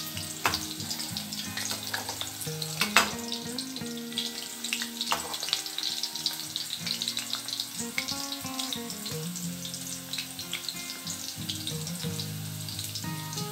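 Chicken kola urundai (spiced minced-chicken balls) deep-frying in oil in a kadai, a steady crackling sizzle. A ladle turns them, with sharp knocks about half a second and three seconds in, the second the loudest.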